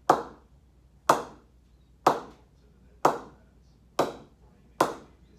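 Cricket ball bounced repeatedly on the face of an English willow SG cricket bat, six sharp knocks about a second apart. Each is a clean, sweet ping, the sound used to judge how well a new bat plays.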